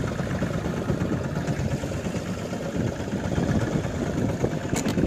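Fishing boat's engine running steadily, a low rumble, with a brief click near the end.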